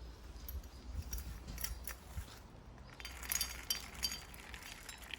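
Peanuts clicking and rattling as they are handled and poured into a bird feeder, in irregular clusters that are busiest about three seconds in.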